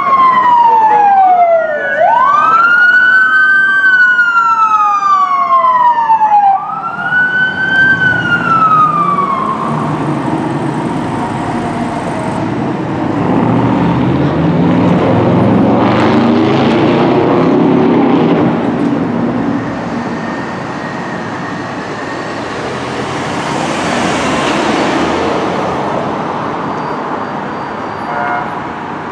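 Fire apparatus siren wailing, its pitch sliding slowly down and up, cutting off about nine seconds in. Then the heavy engine of fire apparatus driving off, with traffic passing.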